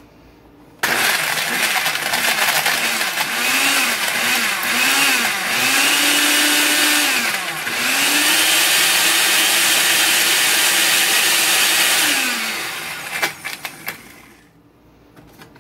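Hamilton Beach smoothie blender's 650-watt motor running, crushing ice with a little water in its plastic jar. It starts suddenly about a second in, its pitch dips and recovers several times, then it winds down after about eleven seconds, followed by a few clicks.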